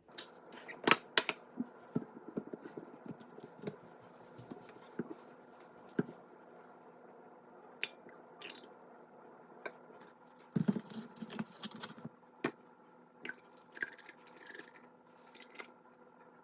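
Kitchen handling sounds while preparing homemade yogurt: scattered clicks, taps and knocks of containers and utensils, busiest at the start and again about ten seconds in, over a faint steady hum.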